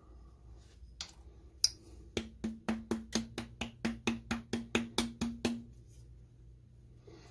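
Palm repeatedly smacking the base of an upturned glass hot sauce bottle to shake the sauce out: a couple of sharp clicks, then about fifteen quick, even knocks, about four a second, each with a short ring.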